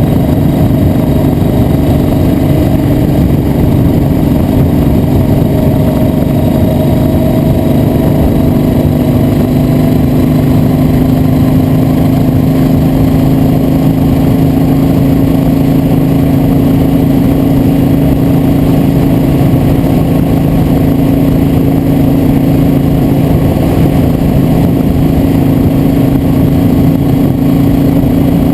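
Motor vehicle engine running at steady road speed, its pitch rising slowly over the stretch, under a heavy rush of wind and road noise.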